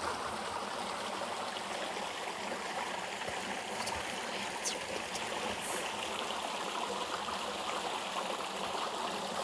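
River water flowing steadily with an even rushing and trickling sound.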